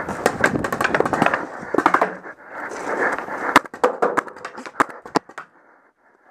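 A paintball player running over leaf-strewn ground: hurried footsteps, gear rattling and rustling against the head-mounted microphone. Between about three and a half and five seconds in come several sharp pops of paintball markers firing, and the movement settles down near the end.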